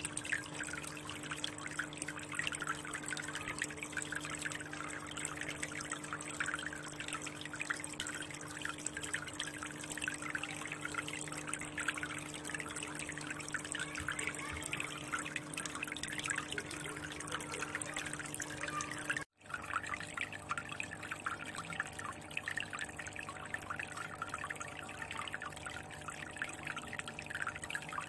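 Water trickling and splashing steadily from a spout into a fish tank, with a faint steady hum beneath it. The sound drops out for an instant about two-thirds of the way through.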